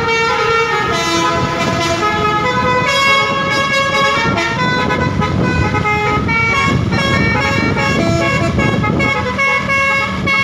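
Telolet multi-tone horn on a garbage truck playing a running melody, its notes changing pitch every fraction of a second, over the truck's engine and road noise.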